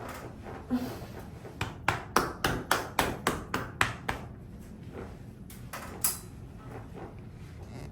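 Hands striking the body in a quick run of about a dozen sharp taps, four or five a second, then a couple more slaps a little later: percussive tapping massage during manual therapy.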